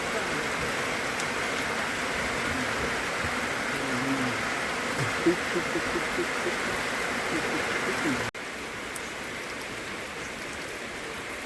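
Heavy rain falling steadily, an even hiss, with faint voices in the background around the middle. About eight seconds in, the sound cuts abruptly to a slightly quieter stretch of the same rain hiss.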